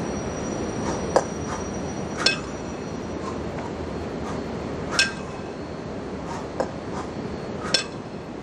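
A pair of 20 kg kettlebells clinking and clanking in about five short, sharp metallic knocks, spread unevenly, as they are racked at the chest, jerked overhead and lowered. Steady background noise runs underneath.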